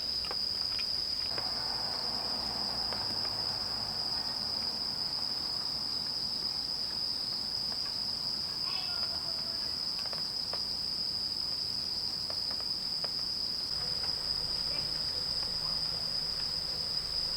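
Crickets chirring in a steady, high-pitched chorus, with a few faint clicks and knocks.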